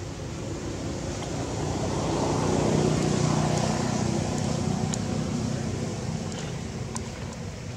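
A passing motor vehicle: a low engine and road rumble that swells to a peak about three seconds in and then fades.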